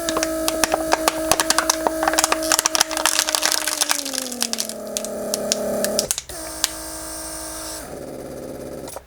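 Mercedes W140 PSE central-locking pump running on vacuum, its motor humming steadily while a plastic bottle on its port crackles and pops as it is sucked in. The pump's pitch sinks about four seconds in as the vacuum builds, the crackling dies away, and the pump cuts out briefly near six seconds before humming again.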